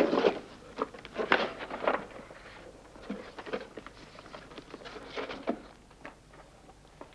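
Photographs and sheets of paper rustling and sliding as they are sorted by hand in a cardboard box, in short irregular bursts with brief pauses between them.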